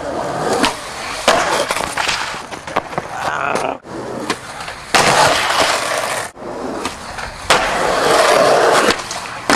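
Skateboard wheels rolling on concrete, with several sharp clacks of the board popping and landing.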